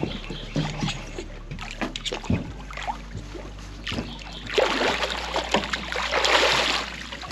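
A large hooked catfish thrashing and splashing at the water's surface as it is scooped into a landing net. Light scattered knocks and clicks come first, then a loud burst of splashing about four and a half seconds in that lasts about two seconds.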